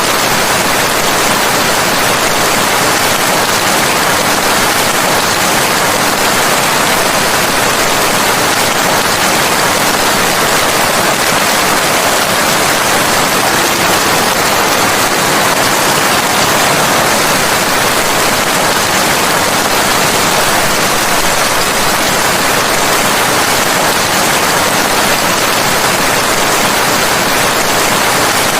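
Steady, heavy rain hissing in an even unbroken wash.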